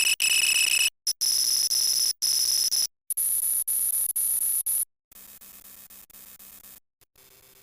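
A run of short electronic sound-effect clips spliced one after another, each under two seconds with a silent gap between. The first three are loud, steady high-pitched alarm-like tones, each higher than the last; the last two are much quieter low-pitched tones.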